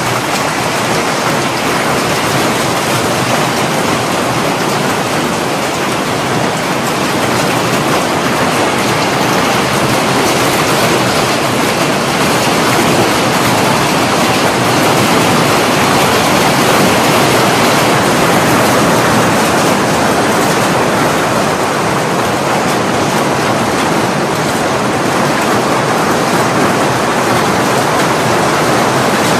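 Heavy hailstorm: hailstones and rain pelting down in a loud, dense, unbroken rush of noise that swells a little midway.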